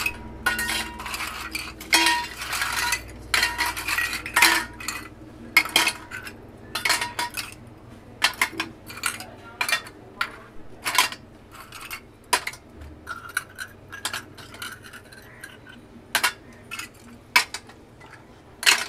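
Sea snail shells dropped one after another into a stainless steel bowl, clattering against the steel and against each other. The clinks come at an irregular pace, some leaving a brief metallic ring from the bowl.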